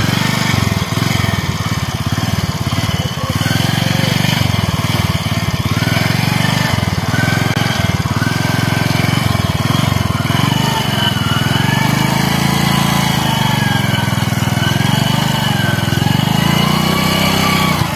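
Small commuter motorcycle engine running at low revs, its note rising and falling as the bike is edged slowly through floodwater.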